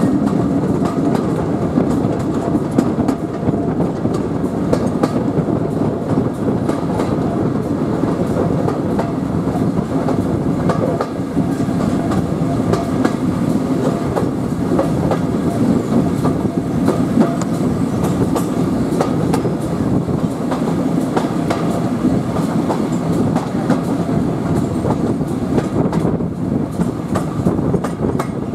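Steam-hauled heritage railway passenger coach running along the line: a steady rumble of wheels on the track, with the clickety-clack of rail joints, heard through an open carriage window.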